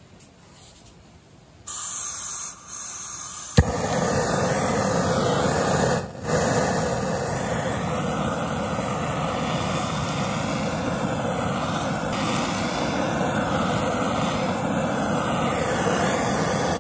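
Portable gas camping stove: gas hissing, a sharp click a few seconds in as it lights, then the burner running with a steady rushing noise.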